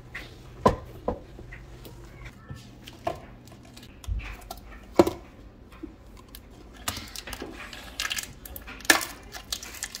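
Handling sounds: a few sharp knocks and taps of objects against hard surfaces, then, from about seven seconds in, the plastic wrapping on a roll of peel-and-stick shelf liner crinkling as it is handled.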